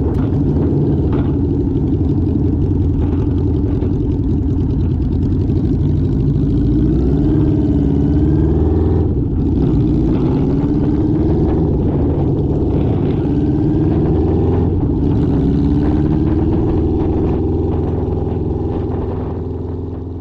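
Custom chopper motorcycle built on a Suzuki GSX750S, its inline-four engine running under way through a fishtail exhaust. The engine note rises and falls several times as the throttle changes, then fades away at the very end.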